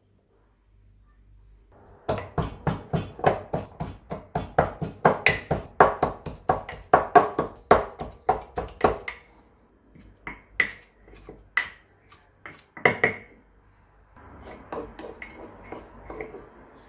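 Wooden pestle pounding in a wooden mortar, crushing pieces into a paste: quick knocks about four a second for several seconds, starting about two seconds in, then a few separate knocks. Near the end a metal spoon scrapes the paste around inside the mortar.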